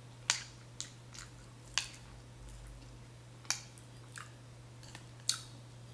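Close-up eating sounds: a person chewing, with about seven short, sharp clicks and smacks scattered through, over a faint steady low hum.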